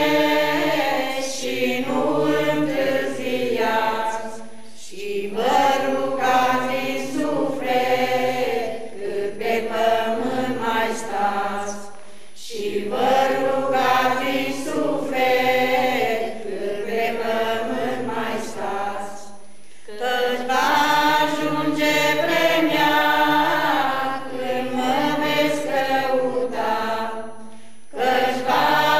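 A small choir of women and men singing together unaccompanied, in long phrases with short breaths between them about every seven seconds.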